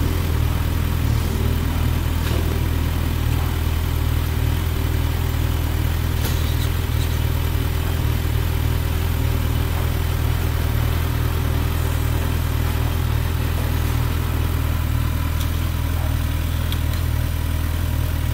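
An engine idling steadily with an even low hum, with a few faint clicks over it.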